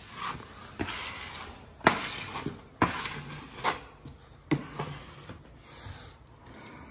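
Bradbury and Bradbury screen-printed wallpaper being slid and smoothed against the wall: about five sharp rustling swipes, roughly one a second, each trailing off.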